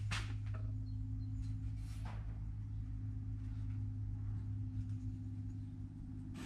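Steady low electrical hum, with a few faint, brief scratches of a pencil drawn along a yardstick across a wooden board.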